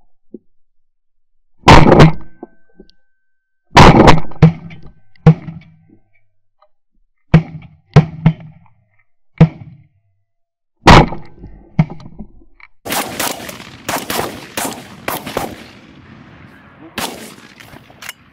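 Shotgun shots at Canada geese, a dozen or more: single blasts and quick doubles a second or two apart, then a rapid volley of overlapping shots from several guns about two-thirds of the way through, and two more near the end.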